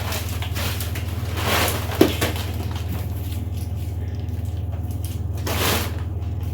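Produce being handled and set down, with swells of rustling and a sharp knock about two seconds in, over a steady low hum.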